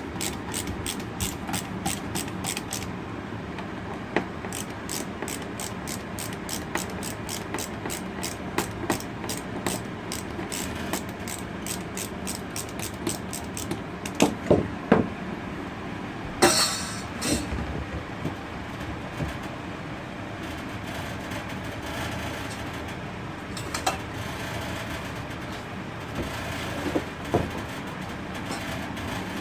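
RV furnace running with a rapid, even tapping rattle, about three taps a second, then a few louder knocks about halfway through and sparser taps after. The rattle comes from small welds inside the furnace that have broken loose.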